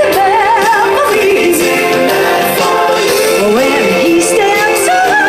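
Live amplified pop song: a woman's voice singing held notes with vibrato over keyboard accompaniment.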